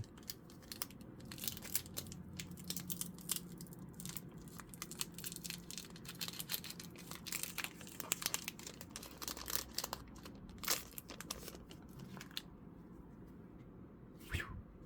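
Foil Pokémon trading-card booster pack crinkling as it is torn open and handled, with the cards clicking and sliding against each other: a run of short crackles that thins out in the last few seconds, ending with one brief card swish.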